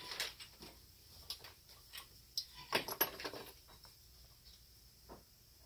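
Scattered light clicks, taps and clatter of hands handling a Mikuni carburetor and its hose fittings on a workbench, with a louder run of knocks about two and a half to three and a half seconds in, then quieter.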